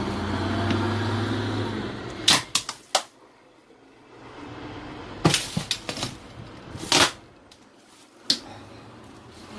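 Sharp plastic snaps and clicks, several in quick clusters, as cutters snip the plastic security seals on roe tubs and the plastic lids are worked open. A low steady hum runs for the first two seconds.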